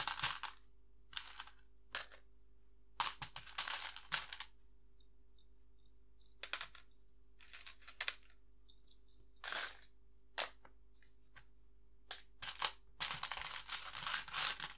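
Small plastic Lego Technic pieces clicking and rattling as hands rummage through them and drop them into plastic sorting tubs: irregular single clicks and short bursts of clatter, with a longer rattle near the end.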